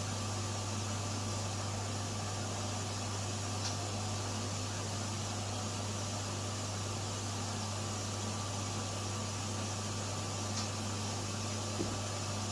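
Steady low machine hum with an even hiss, from laboratory equipment running. There are a few faint light knocks, one near the end.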